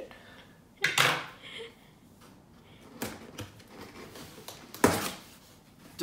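A cardboard box being opened: packing tape cut and the flaps pulled open. There are scraping rustles about a second in and again around three seconds, and a sharp cardboard knock, the loudest sound, near the end.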